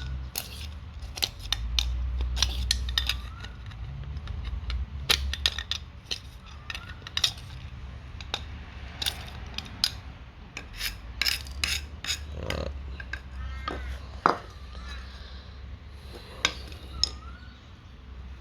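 Hand tools clinking and knocking against a water meter's metal body and inner parts as it is worked apart, in irregular sharp taps and clanks.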